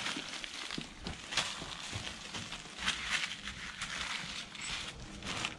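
Irregular crunching and rustling of footsteps on rough ground and debris, a few uneven steps a second.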